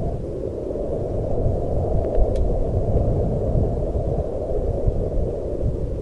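Strong wind blowing in a steady, low rush, deep and without any high hiss.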